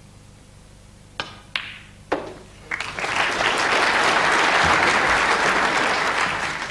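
Snooker balls knocked sharply about three times: the cue striking the cue ball, ball on ball, and another knock as the pot goes down. About a second later an arena crowd breaks into loud, sustained applause.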